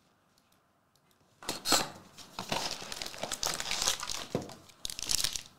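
Foil-wrapped trading card packs crinkling and rustling as they are pulled from a Panini Prizm cardboard hobby box. The sound begins about a second and a half in, after near silence.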